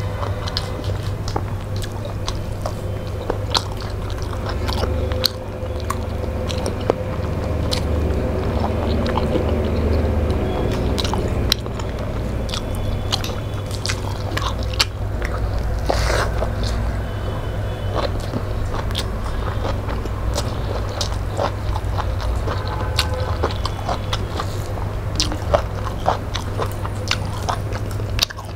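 Close-miked eating sounds: chewing, biting and wet mouth clicks and smacks as rice and fish curry are eaten by hand, with many short sharp clicks throughout. A steady low hum runs underneath.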